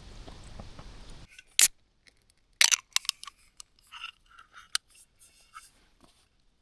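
A steady hiss that cuts off abruptly about a second in, then a run of sharp clicks and light taps from small objects being handled.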